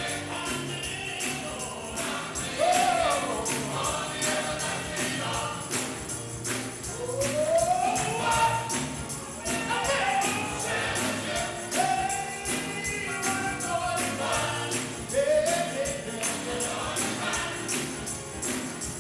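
Gospel choir singing, with a tambourine keeping a steady beat.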